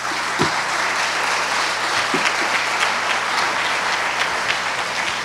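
Audience applauding, a dense steady clapping that holds throughout.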